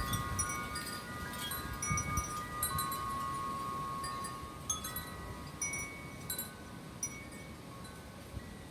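Porch wind chimes stirred by the wind, several notes struck at random and ringing on, overlapping, with low gusts of wind on the microphone near the start.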